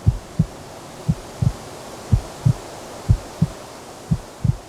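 Slow heartbeat: pairs of low thumps, lub-dub, about once a second, over a faint steady hiss.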